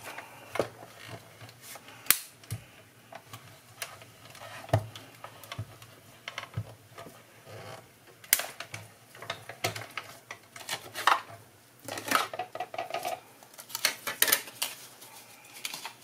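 Hand-cranked mini die-cutting machine being cranked to push a stack of clear plastic cutting plates, a circular metal die and card through its rollers, cutting out a circle. Irregular clicks and knocks from the crank and plates, with a busier run of clicks and clatter near the end as the plates are taken out and laid down.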